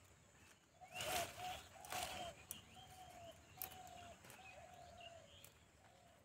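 A bird calling in a steady series of short, low, level notes about once a second, with fainter high chirps from smaller birds. About one and two seconds in, two louder rustling snaps of spinach leaves being picked by hand.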